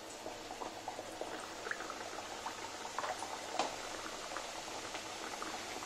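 Chandrakala pastries frying in hot fat in a steel kadhai on a low flame: a steady sizzle with many small crackles and pops.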